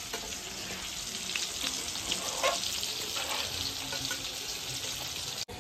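Chicken pieces in masala frying in a kadai, a steady sizzle with a metal spatula scraping and stirring now and then. The sound drops out sharply for a moment near the end.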